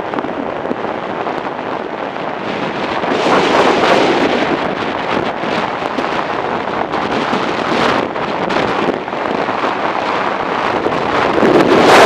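Wind rushing over the microphone of a camera on a moving motorcycle, a steady roar of air that swells louder about a third of the way in and again at the end.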